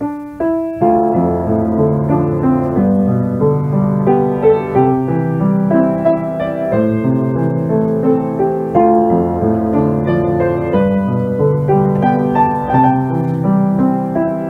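Background piano music, a flowing melody over a moving bass line, opening with a few single notes and filling out from about a second in.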